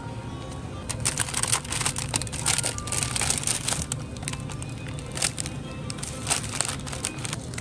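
Crinkly plastic food packaging, a sauce pouch and frozen gyoza packs, rustling and crackling in bursts as the packs are handled and put into a plastic shopping basket. Soft background music runs underneath.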